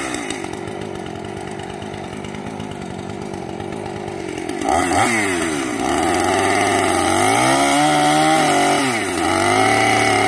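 Two-stroke gas chainsaw running at a low throttle, then revved up about halfway through as it cuts into a pig's leg; the engine note sags under the load for a second or two and climbs again, then drops back near the end.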